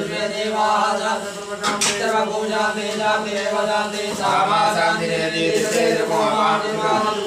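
Men's voices chanting Sanskrit mantras for a Rudrabhishek in a steady, rhythmic recitation.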